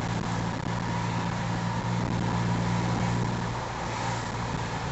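Volkswagen GTI heard from inside its cabin while cruising at a steady speed: a steady low engine drone over road noise, with no revving.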